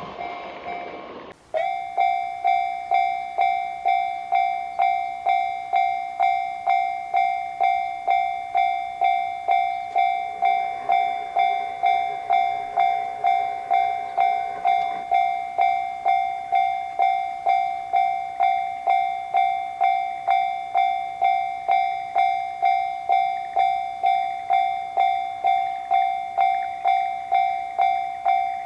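Japanese railroad crossing warning bell ringing "kan-kan" steadily, a clear ringing tone struck just under twice a second. The crossing's electronic bell signals that a train is approaching and the gates are down. At the very start, a passing train's rush cuts off abruptly about a second in.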